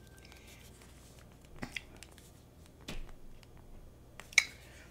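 Quiet room with a few short, soft clicks: two close together under two seconds in, one about three seconds in and a sharper one near the end.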